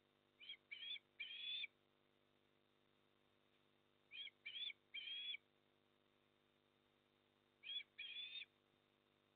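Eastern osprey giving whistled chirping calls: three bursts of two or three short rising chirps, about every three and a half seconds.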